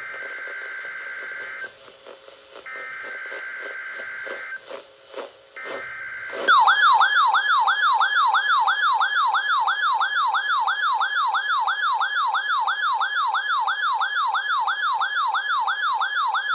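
NOAA Weather Radio SAME digital header bursts: three short, harsh two-tone data squeals. About six and a half seconds in, the third burst is cut short by a much louder warbling alarm that sweeps up and down about three times a second. This is a weather alert receiver's siren, set off by the test signal.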